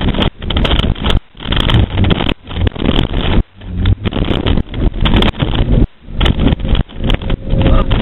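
Loud, uneven rumbling and rattling inside a moving Ford Thunderbird's cabin as it is driven hard, rising and dropping in irregular surges with brief breaks.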